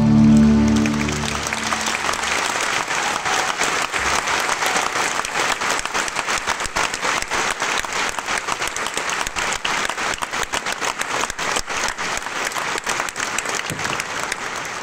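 An orchestra's final held chord dies away in the first second or two, and a large audience breaks into steady applause that fills the rest.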